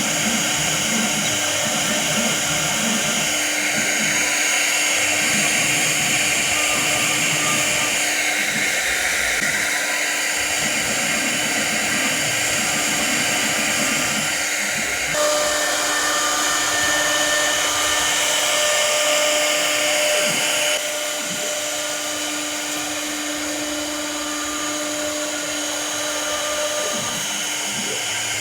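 CNC router cutting an aluminium composite (ACM) sheet: the spindle runs with a steady whine under loud cutting noise, with short steady tones coming and going as the machine moves. The sound changes about halfway through and drops somewhat in level a little later.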